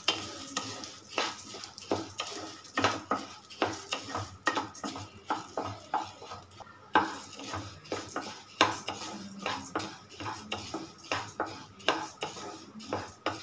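A wooden spatula stirs and scrapes split urad dal and moong dal around a non-stick kadai in quick, irregular strokes, roasting the lentils in a little oil.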